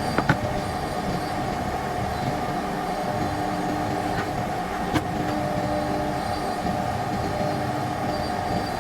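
A power tool running steadily with a constant hum, with a few sharp clicks just after the start and a single click about five seconds in.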